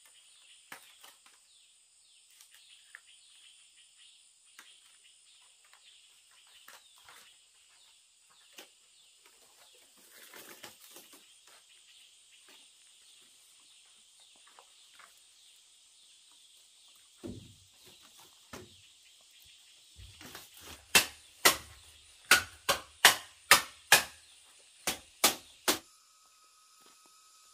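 A run of about ten sharp, loud knocks, roughly two a second, like blows of a tool on wood or bamboo, starting about twenty seconds in. Under them is a steady high insect drone with faint scattered ticks and rustles.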